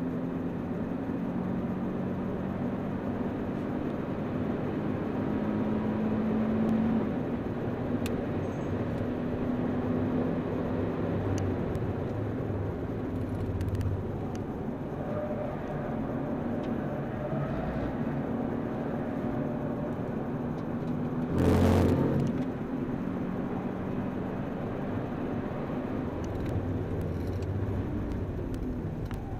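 Nissan 370Z's V6 engine heard from inside the cabin under hard driving on a track, its pitch rising and falling with the revs over steady road noise. About three-quarters of the way through, a brief loud burst of noise stands out.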